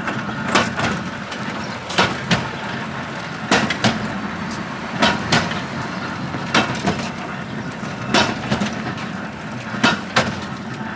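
Rhythmic knocks, two close together about every second and a half, over a steady low hum.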